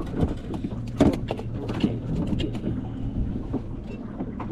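Boat motor running with a steady low hum, and a few sharp knocks, the loudest about a second in.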